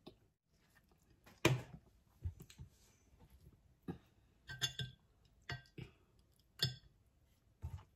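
Close-up eating sounds from a person eating rice and pork sinigang by hand: irregular wet mouth smacks and chewing clicks. Late on, a metal spoon clinks against a glass soup bowl.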